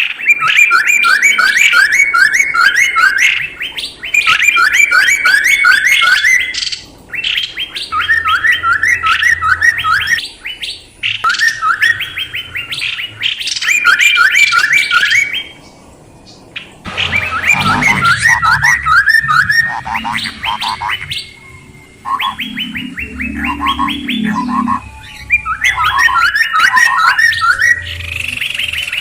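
Songbird calling in a lure recording: repeated phrases of about ten rapid, sharp notes, each phrase lasting two to three seconds with short pauses between them. The calls are lower and more varied in the second half.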